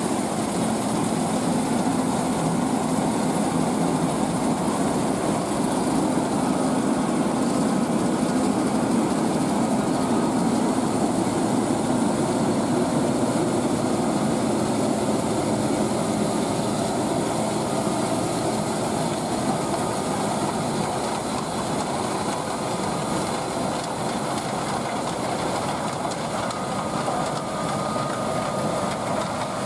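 Heavy diesel farm machinery running steadily: a dense, even engine and machinery noise with a faint steady whine above it.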